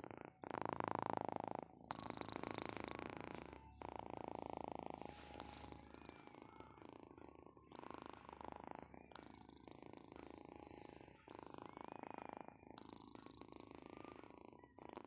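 Sleeping cat snoring, a raspy noise on each breath that repeats in a steady rhythm, each breath lasting about a second and a half.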